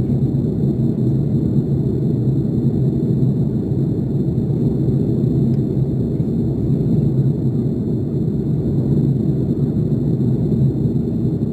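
Airliner cabin noise in flight: a steady low rumble of engine and airflow noise that does not change.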